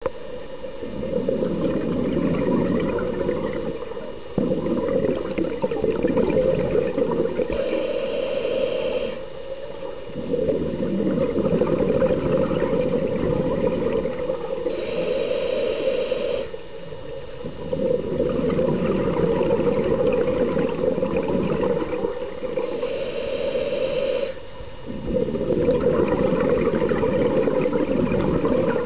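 Scuba diver breathing through a regulator underwater: long stretches of bubbling noise broken by short pauses, with a higher hiss about every seven seconds, in a slow, regular breathing cycle.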